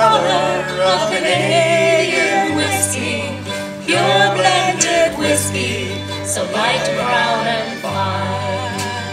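Small acoustic folk band playing between sung lines: strummed acoustic guitars over a bass note that changes about every second, with a wavering melody line on top.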